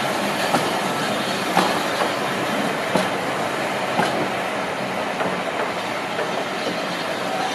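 Passenger coaches of a slow-moving train rolling past, their wheels knocking sharply over rail joints about once a second over a steady rumble.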